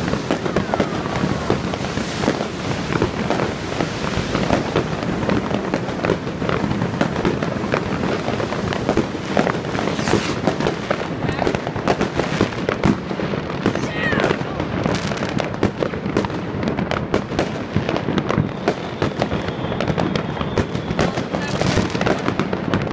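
Dense, continuous crackling and banging of many fireworks and firecrackers going off at once, with a brief whistle or two.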